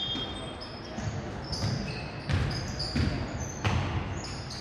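A basketball being dribbled on a hardwood gym floor, a bounce about every two-thirds of a second, with sneakers squeaking on the court.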